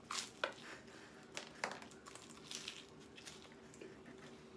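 Biting into a slice of pizza and chewing: a few crisp crunches of the crust in the first couple of seconds, then quieter chewing and mouth sounds. A faint steady hum lies underneath.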